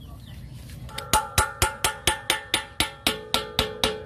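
Metal tool tapping on a truck's steel wheel hub and bearing: about a dozen quick, even blows at roughly four a second, starting about a second in, each ringing like struck steel.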